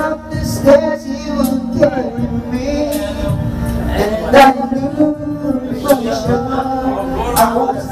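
Karaoke: a man singing into a microphone over a backing track played through the speakers.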